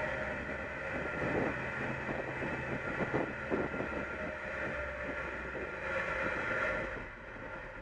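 Front-loading garbage truck running with its engine and hydraulics held at raised revs: a steady whine with a few knocks and rattles from the can around the middle. The revs drop about seven seconds in.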